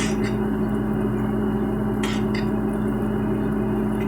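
A steady low hum from a running kitchen appliance, with two pairs of short clicks, like utensils or dishes clinking, about two seconds apart.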